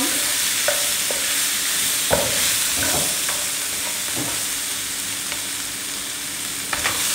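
Shrimp sizzling in a hot nonstick pan while a wooden spoon stirs them, with a handful of short knocks and scrapes of the spoon against the pan.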